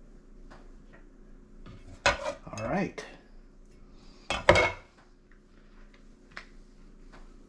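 Metal kitchen utensils clanking and scraping, in two loud bursts: one about two seconds in with a wavering scrape, and a shorter one past four seconds.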